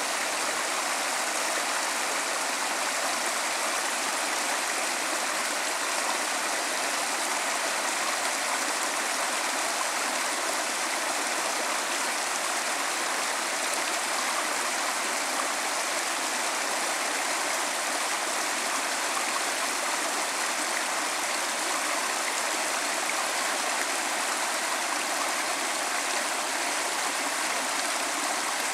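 Small rocky stream rushing and splashing over rocks in a steady, unbroken wash of water noise.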